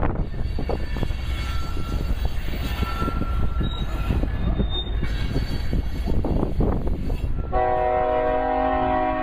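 Wind buffeting the microphone over a low rumble, then about 7.5 seconds in a diesel locomotive's air horn sounds a steady multi-tone chord and holds it.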